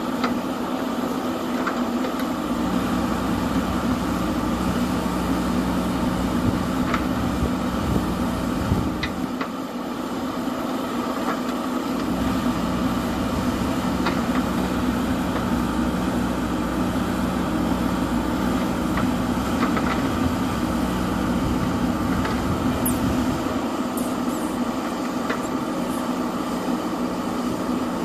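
JCB 3DX Super backhoe loader's diesel engine running steadily. Its low rumble drops away and comes back a few times, and there are a few faint clicks.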